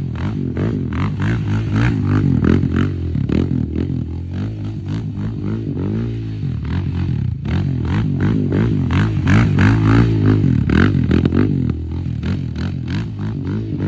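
Yamaha ATV engine revving up and down repeatedly as it is thrown through tight turns, its pitch rising and falling every second or two.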